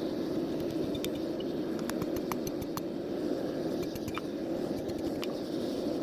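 Forge running with a steady rushing noise, sprinkled with small sharp ticks.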